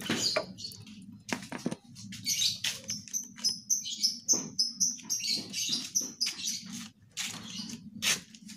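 A small bird chirping, with a quick run of repeated high notes, about four a second, through the middle. Scattered sharp clicks and a faint low hum sound underneath.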